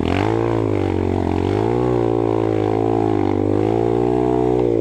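Single-cylinder four-stroke trail bike engine running under throttle. The engine note dips just after the start, climbs back about a second and a half in, then holds with small rises and falls as the throttle is worked.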